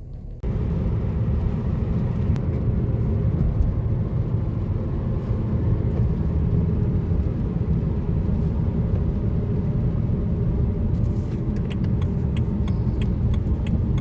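Steady low rumble of a moving car's road and engine noise, starting abruptly about half a second in. Near the end come quick light clicks, about two or three a second.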